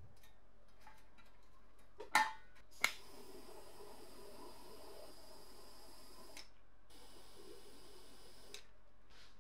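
A BS-261 butane flame gun gives two sharp clicks as its igniter lights it, then its blue torch flame hisses steadily while heating a rusted nut to free it. The hiss breaks off a little after halfway and comes back fainter.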